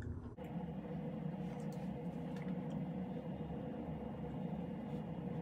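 Steady low hum of room background noise with a faint held tone, which changes abruptly a little under half a second in; a few faint soft ticks over it.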